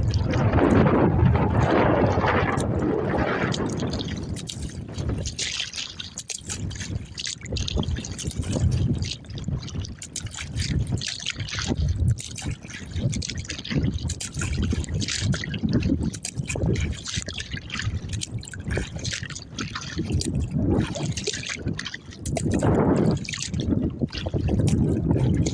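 Lake water splashing and trickling around a Riot Edge 13 kayak on choppy water. Wind buffets the microphone with a low rumble, loudest for the first few seconds and again near the end.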